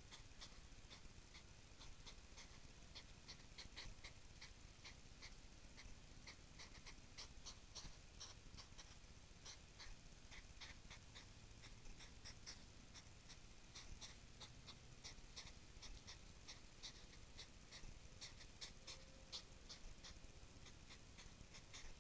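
Hedgehogs huffing and snorting: a faint, rapid, irregular run of short puffs, the sound of hedgehog courtship.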